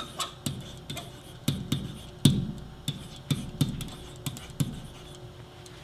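Typing on a computer keyboard: a quick, irregular run of keystrokes that stops about three-quarters of the way through.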